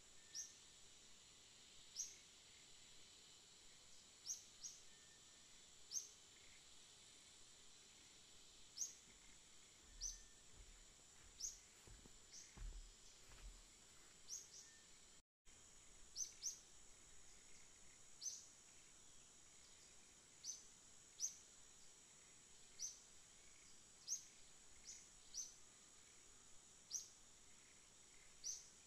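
Faint outdoor ambience: a steady high insect drone with short, high bird chirps, one every second or two.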